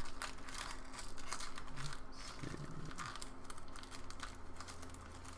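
Foil wrapper of a Donruss Optic trading-card pack crinkling and tearing as it is peeled open by hand: a continuous run of small irregular crackles.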